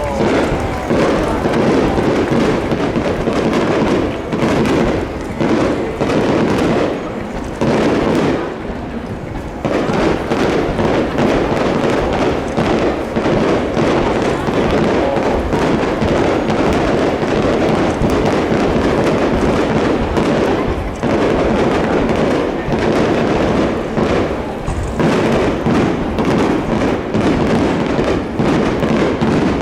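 Fireworks display: a dense, continuous barrage of shell bursts and crackling, with a short lull about eight seconds in and brief dips later on.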